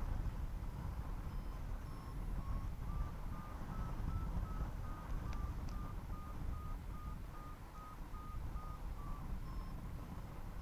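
Paragliding variometer beeping in short, evenly spaced tones, about two to three a second, over a steady rumble of wind on the microphone. The beeps start about two seconds in, rise slightly in pitch, then sink back and stop near the end: the vario's climb tone signalling lift in a thermal.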